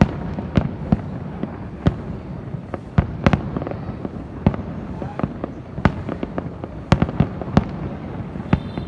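Fireworks display going off: sharp, irregular bangs from bursting shells, about one or two a second, over a continuous rumble of further bursts.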